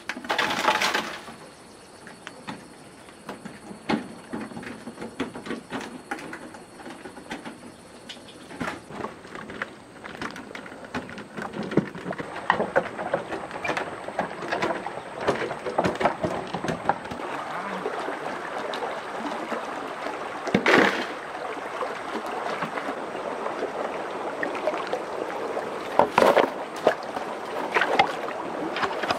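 Hand construction work: a busy run of irregular knocks, scrapes and clatter, with a few louder sharp bangs in the later part.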